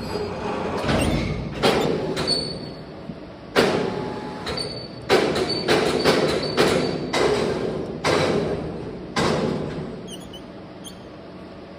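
A series of about a dozen metal-on-metal knocks and clanks, each ringing briefly, at irregular intervals and bunched closest together in the middle. They stop about two seconds before the end, leaving a quieter steady hum.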